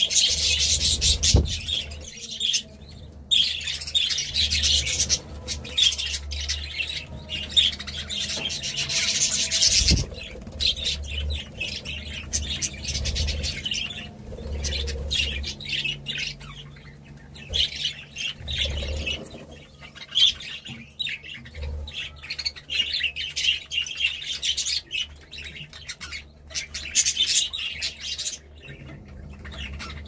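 A flock of budgerigars chattering and chirping, many birds at once in a dense, broken warble. Two sharp thumps, about a second in and again about a third of the way through.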